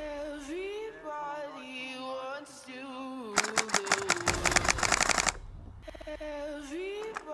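Slow song with a woman singing, cut across about three seconds in by a rapid burst of airsoft rifle fire on full auto lasting about two seconds.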